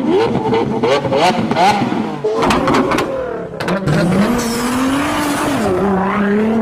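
Sports car engine revving in a series of short rising bursts, with several sharp pops from the exhaust, then holding a steadier note that dips and rises again near the end.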